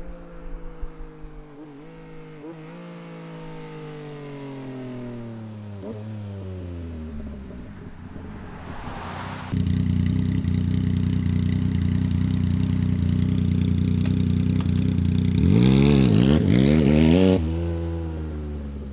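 Yamaha XSR900's inline-three engine through a Hindle EVO Megaphone exhaust. First the bike rides away, its engine note falling slowly and fading for several seconds. After a cut it idles steadily, with a quick run of throttle blips about three-quarters of the way through before it settles back to idle.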